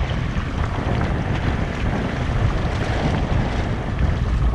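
Wind buffeting the microphone in uneven low gusts over water sloshing around a boat's stern at sea.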